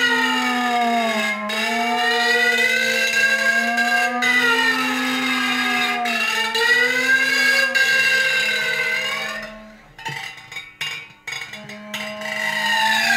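Sustained drone from an invented wind instrument with a copper horn bell: a steady low note whose overtones slowly slide up and down. About ten seconds in the tone breaks off into a few short sputters, then the drone comes back near the end.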